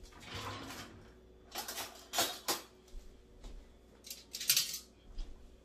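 Kitchen utensils and dishes clinking and scraping in a few short clusters, the loudest about four and a half seconds in.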